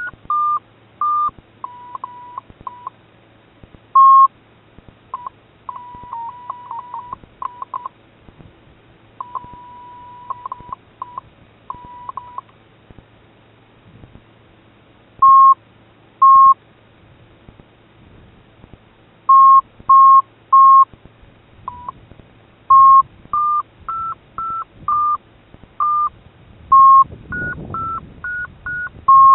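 FrSky variometer tones from the radio transmitter: short beeps around 1 kHz in irregular groups, with one longer held tone about ten seconds in. Near the end the beeps step higher in pitch and come closer together, the vario's signal of a climb.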